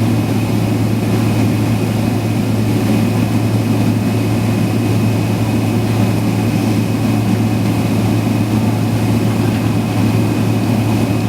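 Cabin noise inside a jet airliner taxiing at low speed: a steady low hum with a thin, constant high whine above it.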